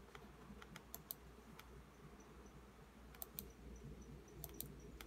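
Faint, scattered clicks of a computer mouse, about ten in all, several in quick pairs, over quiet room tone.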